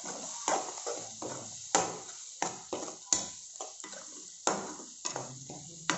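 Steel ladle stirring a thick tomato-onion masala in a nonstick kadai: short knocks and scrapes against the pan, irregular at about two a second, over a faint frying sizzle.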